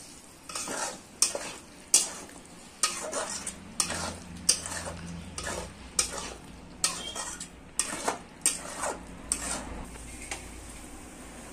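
Steel spoon stirring chickpea and potato curry in a metal kadai, clinking and scraping against the pan in irregular strokes, one or two a second, that stop shortly before the end.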